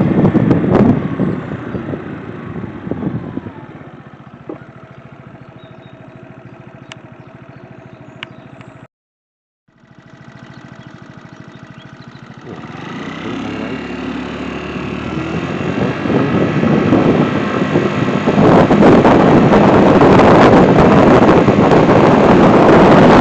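Scooter engine running with wind buffeting the microphone. The sound falls to a steady lower engine sound, stops dead for about a second around the middle, then builds back up to loud engine and wind noise over the last few seconds as the scooter gets going.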